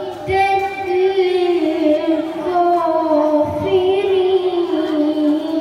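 A female reciter chanting the Qur'an in melodic style, holding long wavering notes that slide slowly up and down in pitch, with a new phrase starting about three and a half seconds in.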